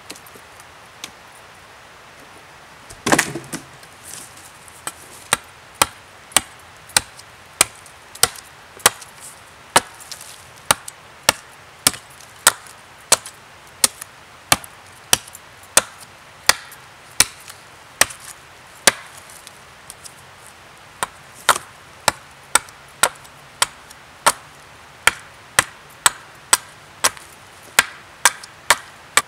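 Axe blows chopping into the end of a wooden stake stood on a stump, sharp knocks about one and a half a second with a short pause about two-thirds of the way through. A single heavy thump about three seconds in.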